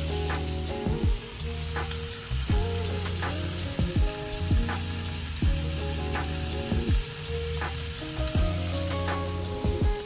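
Beef pieces sizzling as they fry in a pan, over background music with a steady beat and bass notes.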